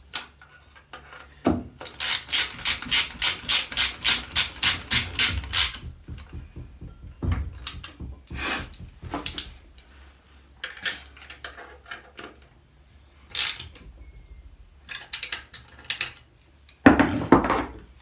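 Hand socket ratchet clicking as it tightens the shifter frame bolts: a quick even run of clicks, about five a second, then shorter scattered runs with rubbing and scraping of metal, and a louder knock near the end.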